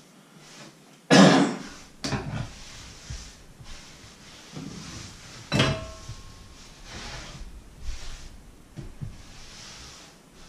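Objects handled on a wooden kitchen worktop: a loud short burst about a second in, then scattered knocks and thuds, and a sharp clink about five and a half seconds in that rings briefly.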